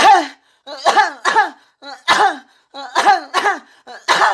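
Exaggerated, put-on coughing: about seven short voiced coughs, each dropping in pitch, several coming in quick pairs.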